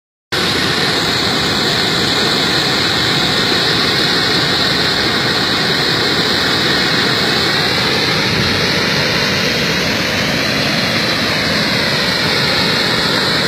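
Muddy floodwater spilling over a concrete dam wall and crashing into the foaming pool below: a steady, loud rush of falling water from a reservoir full to overflowing after the rains.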